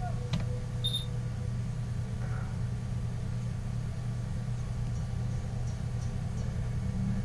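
Steady low hum of background noise on the microphone, with a sharp click near the start and a brief high beep about a second in.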